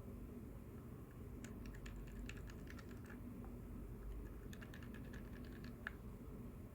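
Typing on a GK61 mechanical keyboard with Gateron optical switches fitted with silent red stems, lubed and filmed: two short runs of quick, soft keystrokes, each lasting about a second and a half.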